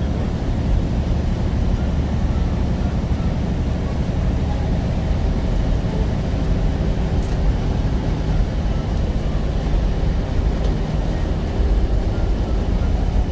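Steady low rumble of a semi truck driving at highway speed, heard from inside the cab: engine drone with tyre and road noise on a snow-covered road.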